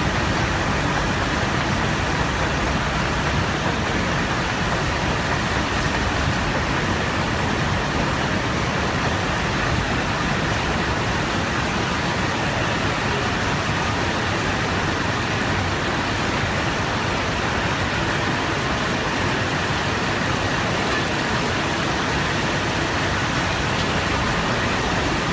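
Steady, loud din of a hall of shaking-table concentrators running, with wash water flowing over the riffled decks.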